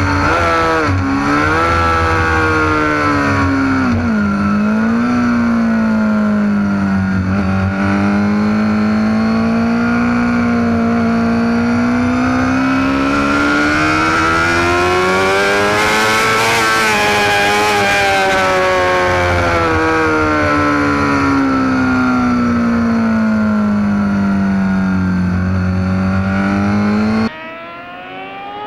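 Road-racing motorcycle engine heard from an onboard camera at speed, with wind rush over it. The revs dip twice in the first few seconds, then climb slowly for about ten seconds and fall away again. Near the end the sound cuts off suddenly to a quieter, more distant engine sound.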